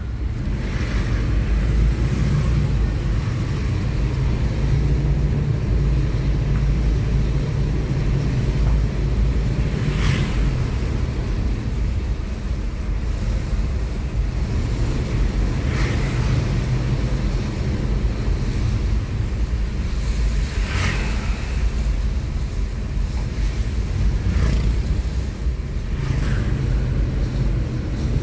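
Steady low engine and road rumble heard from inside a moving car's cabin on a wet road, with a few short hisses along the way.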